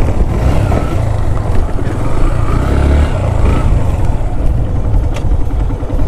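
Motorcycle being ridden, engine running under a heavy low rumble, with a couple of sharp clicks near the end.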